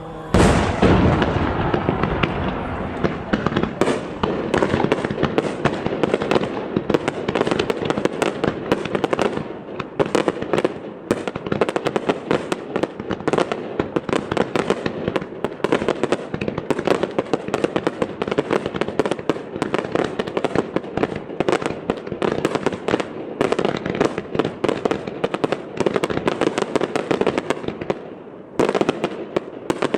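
Fireworks display: a loud opening boom, then a dense, continuous barrage of shell bursts and crackling, easing briefly near the end before more bursts follow.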